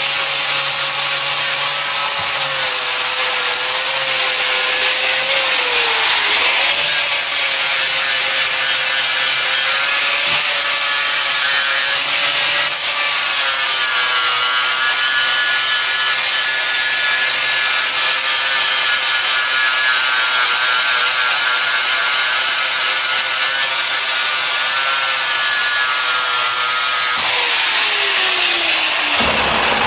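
Hitachi angle grinder with a flap disc grinding a thick steel plate clean for welding. The motor whines steadily and the pitch wavers as the disc is pressed into the steel. Near the end it is switched off and spins down with a falling whine.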